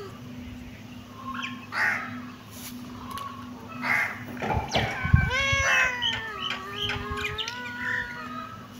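Kittens meowing: a run of short high calls, then a longer drawn-out meow about five seconds in, with a few soft knocks.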